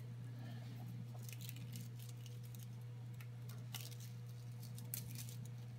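Faint crinkling and clicking of a plastic bottle strip being handled and threaded to knot a net, in scattered bursts over a steady low hum.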